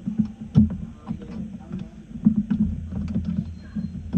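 Irregular knocks and clunks of metal hardware being handled as a router is fitted to a CNC machine's Z-axis adapter plate, several sharp knocks a second, with a low hum coming in about halfway through.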